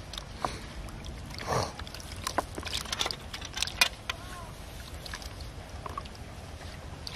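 Scattered clicks and rustles of a wet mesh hand net on a wire hoop being handled, with small fish dropped into a plastic basin and a short splash about a second and a half in.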